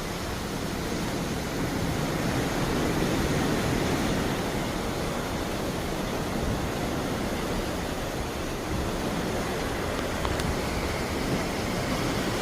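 Sea water rushing along the hull of a moving cruise ship: a steady wash of waves with no breaks.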